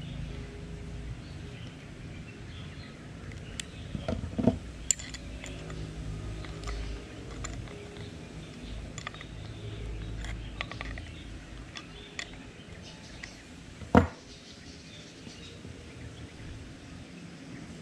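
Small metal clicks and clinks of a hand tool working the rotor nut of a Shimano Sienna 2500 FE spinning reel, with a few knocks about four to five seconds in and one sharp knock about fourteen seconds in.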